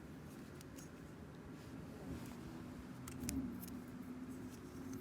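A few faint metallic clicks from a Smith & Wesson Extreme Ops folding knife being handled, most of them about three seconds in, over a steady low hum.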